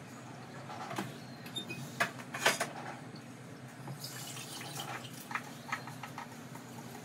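Kitchen clatter of a bowl and pot being handled, with a few sharp knocks about two seconds in, then soaked rice and its water pouring from a bowl into a pressure cooker, over a low steady hum.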